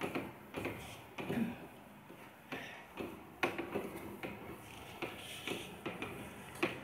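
Light scattered clicks and rustles of notebook paper being handled, about ten over several seconds, with no steady sound between them.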